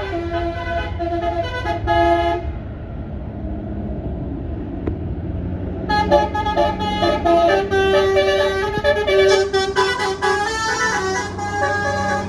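A bus's basuri telolet horn playing a tune of changing notes, stopping about two seconds in and starting again with a longer run of notes about six seconds in, over the low rumble of the bus engine.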